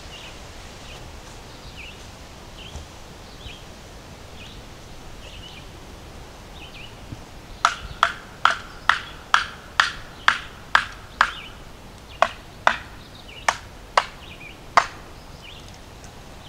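A short-handled hammer striking a wedge set against the log: about a dozen sharp blows, roughly two a second with a short pause midway, knocking a stuck felling wedge free.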